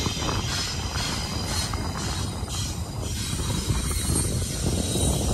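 Freight train rolling past at close range: a steady rumble of steel wheels on rail with a faint high wheel squeal, as the cars lead up to the train's mid-train distributed-power locomotives.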